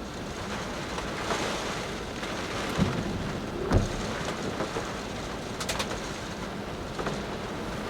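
Typhoon gale wind and rough lake waves: a steady rush of wind and water, buffeting the microphone, with two heavy thumps about three and four seconds in and a few sharp clicks a little later.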